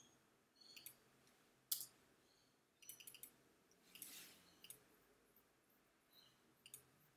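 Faint computer mouse clicks: a few scattered single clicks, the sharpest a little under two seconds in, over near-silent room tone.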